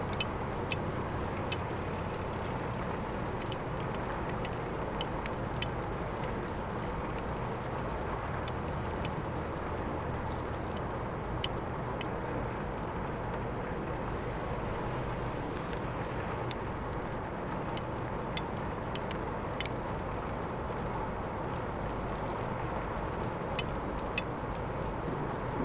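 A steady low drone, like distant machinery, with faint sharp clicks scattered through it.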